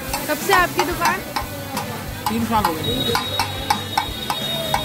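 A metal spatula scrapes and strikes a flat iron griddle, about three strokes a second, with a few brief metal-on-metal squeals. Potato patties, chickpeas and peas sizzle in oil on the hot plate beneath it.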